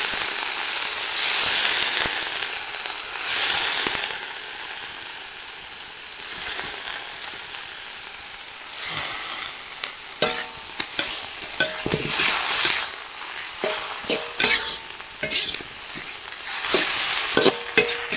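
Sliced banana heart frying in a pan of sautéed chili sambal, sizzling in loud surges as it is stirred and turned. From about ten seconds in, a utensil knocks and scrapes against the pan.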